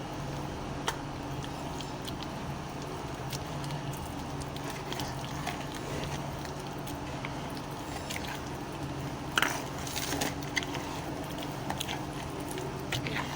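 Electric hand mixer running steadily as its beaters churn the soap mixture, with wet squelching and scattered clicks of the beaters against the container, a brief louder clatter about nine seconds in.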